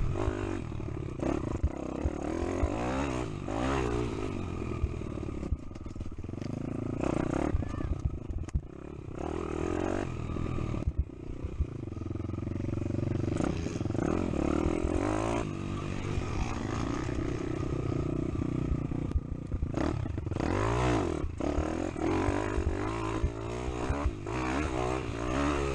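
Pit bike's small single-cylinder four-stroke engine revving up and down as it is ridden over a rough dirt enduro track, picked up close by an onboard camera, with frequent knocks and rattles from the bike over bumps.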